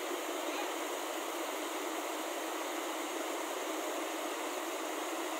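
Steady hiss of rain falling on a car, heard from inside the cabin.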